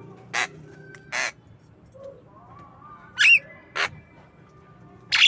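Javan myna giving five short, harsh calls. The call about three seconds in is a squeaky note that twists up and down in pitch.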